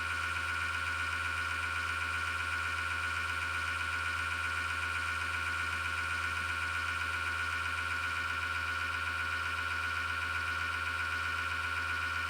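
PC power-supply fan with a bad bearing making a steady grinding whirr with a high-pitched whine and a low hum beneath it: the sign of a worn fan bearing.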